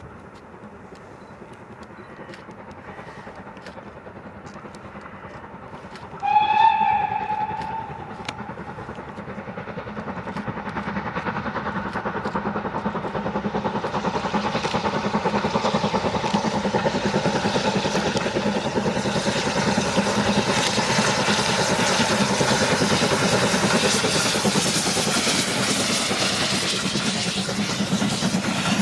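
Steam locomotive hauling a passenger train: one whistle blast of about a second and a half, about six seconds in. Then its exhaust beats grow steadily louder as it approaches and passes, with the coaches rolling by near the end.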